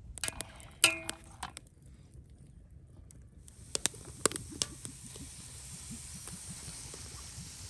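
A few light metallic clinks in the first second and a half, one ringing briefly. Then, from about three and a half seconds in, a steady sizzle with scattered pops as cooking oil is poured onto sliced onions in a large aluminium pot over a wood fire.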